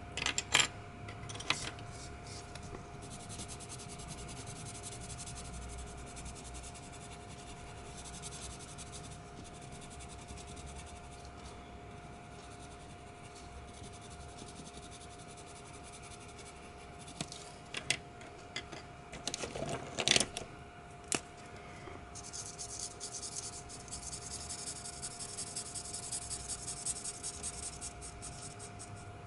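Coloured pencil rubbing on paper, with a few sharp clicks as pencils are picked up and put down. About two thirds of the way in comes a cluster of clicks and knocks as a marker is uncapped, then a felt-tip permanent marker scratches rapidly back and forth across the paper, filling in colour.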